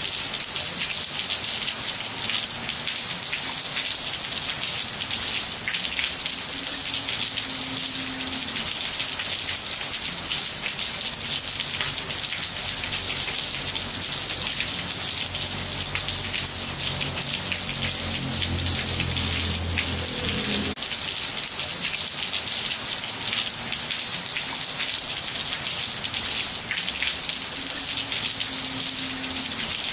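Steady rain falling on ceramic floor tiles: a dense, even hiss of drops with fine individual ticks.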